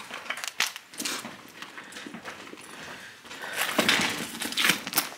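Scattered clicks, knocks and rustling of things being handled, louder in a stretch of rustling about three-quarters of the way through.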